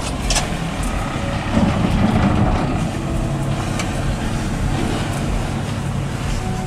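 A sailboat's auxiliary engine running steadily as the boat motors under power.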